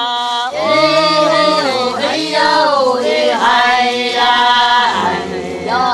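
Singing: a chant-like song in the Bunun language, the voice holding long notes that slide up and down.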